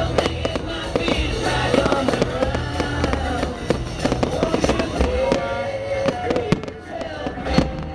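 Fireworks bursting and crackling over loud music playing at the display, with sharp bangs coming more often near the end.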